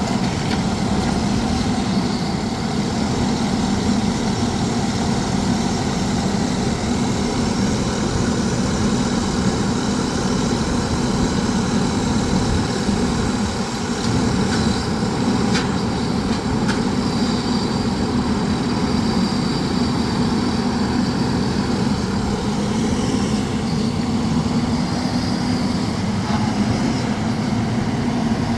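Rock drilling rig running steadily, a continuous mechanical noise with no breaks or changes.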